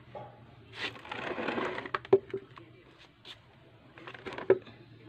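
A plastic basin of liquid being gripped and lifted: a stretch of handling noise, then sharp plastic knocks about two seconds in and again near the end.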